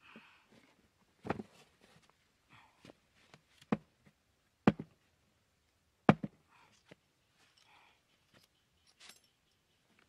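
A cardboard box being handled and cut with a small blade: four sharp knocks, with lighter taps and faint scraping and rustling of the cardboard between.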